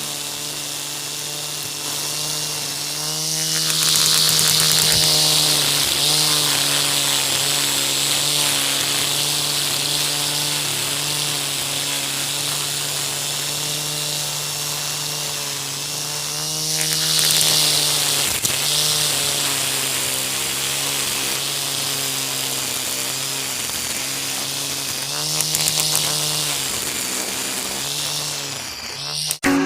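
Electric angle grinder rigged as a grass cutter running steadily. Its motor pitch dips and recovers about three times, each dip with a burst of hissing.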